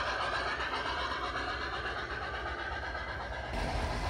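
Freight cars of a large-scale garden railway train rolling along the track away from the listener, their wheels running over the rails and fading as the train recedes. Near the end the sound gives way suddenly to a steady low rumble.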